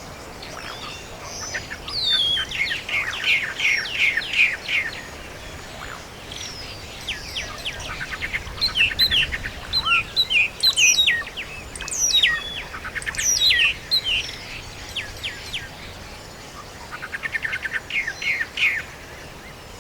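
Songbirds singing: bursts of rapid trilled notes and quick sliding chirps, in phrases with short pauses between them.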